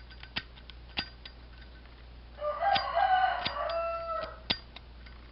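Sharp, scattered clicks of a new Zippo lighter being worked by hand, its flint wheel turning without striking a spark. About two and a half seconds in, a rooster crows for about two seconds, the loudest sound here.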